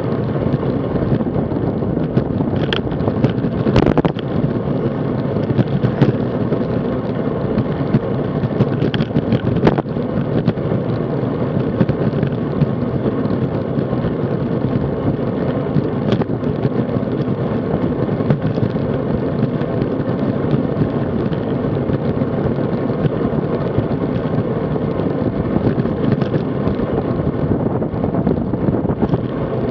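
Steady wind buffeting and road rumble on the microphone of an action camera mounted on a road bike riding at about 30 km/h. A few sharp knocks break through, the clearest about 4 and 10 seconds in.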